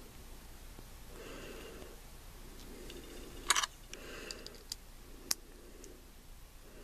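Small hard-plastic clicks and taps from a mini figurine being pressed onto its clear plastic display peg and stand. A quick rattle of clicks comes about halfway through, and a single sharp click a couple of seconds later.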